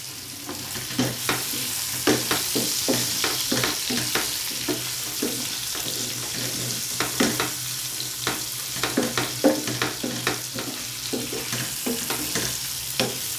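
Pieces of liver sizzling in hot oil in an aluminium pan, with a wooden spatula stirring and scraping, knocking against the pan many times over a steady hiss.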